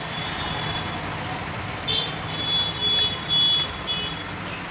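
Chicken pieces frying in oil in a handi, a steady sizzle. About two seconds in, a run of short, high electronic beeps comes in over it and stops about two seconds later.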